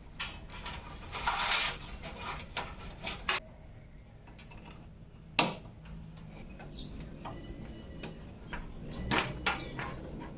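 Hard parts being handled during a PC build: a string of clicks and knocks, with a short scraping rattle about a second in and one sharp knock near the middle.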